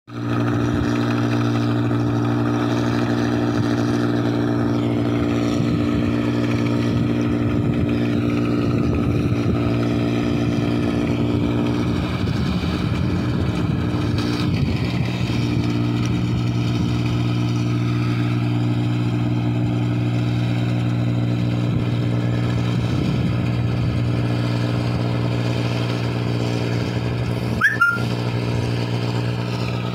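Engine running at a steady speed, a constant deep drone. A brief click and a short high chirp come near the end.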